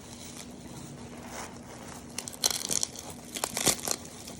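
Plastic packing wrap being pulled and crinkled in two short bursts, one about halfway through and another a second later.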